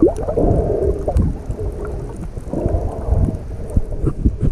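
Muffled underwater sound of a diver's breathing, coming in long swells about a second each, with low knocks and gurgles of water against the camera housing.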